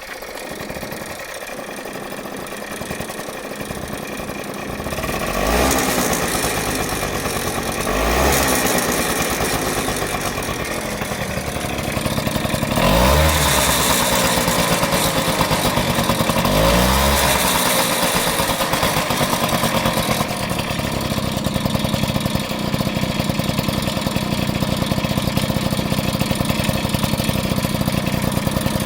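Honda HF05 90 cc two-stroke scooter engine idling, revved four times about 5, 8, 13 and 16 seconds in, each rev rising and falling back to idle, then idling steadily. Over it runs a ticking, rustling noise, with a rattle that the owner hears above all after the throttle is let off; its source is unknown to the owner.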